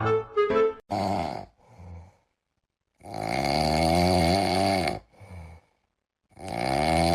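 Snoring: rough, drawn-out breaths repeating every few seconds with silent gaps between, the longest lasting about two seconds.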